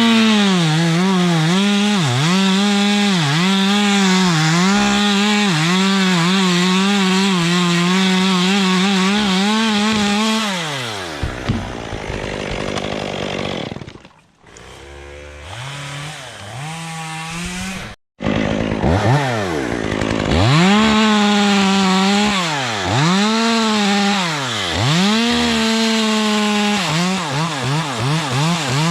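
Two-stroke chainsaw cutting wood at high revs, its pitch dipping about once a second as the chain bogs in the cut. It drops to idle about ten seconds in, then revs up and cuts again in the second half.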